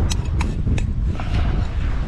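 Wind buffeting the microphone in a steady low rumble, with three or four sharp clicks and scrapes in the first second as sand is pushed back into a dug hole.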